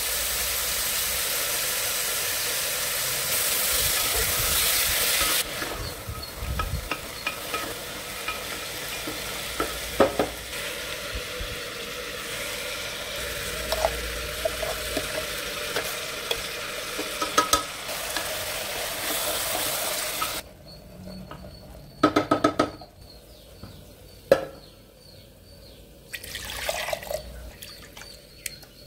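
Chickpeas and spices frying in a pressure cooker: a steady sizzle, louder for the first five seconds, with a wooden spoon stirring and scraping. Later there are a few sharp knocks as the steel mixer jar is tapped against the cooker.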